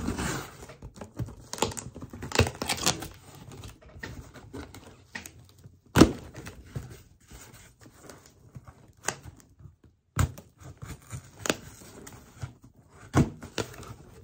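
A cardboard shipping box being opened by hand: a blade scraping along the packing tape at the start, then irregular knocks, taps and scrapes of the cardboard flaps being worked loose, with a sharp knock about halfway through.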